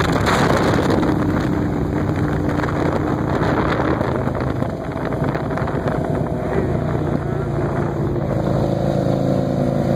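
Sport motorcycle engines running at a steady road speed, heard from the pillion seat of a moving bike, with wind rushing over the microphone. There is a brief dip in loudness about halfway through.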